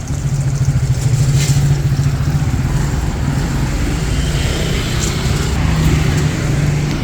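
A motor vehicle's engine running close by in street traffic, a steady low rumble with a held engine tone.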